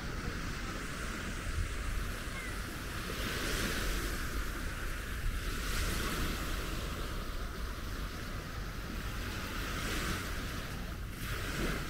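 Small waves washing onto a sandy shore, a soft swell of surf every couple of seconds over a steady wash, with a low rumble of wind on the microphone.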